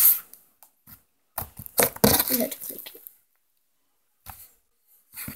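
Slime being stretched and squeezed by hand, crackling and popping with short sharp clicks. There is a long crackly stretch early on, a pause of about a second, and more crackling near the end.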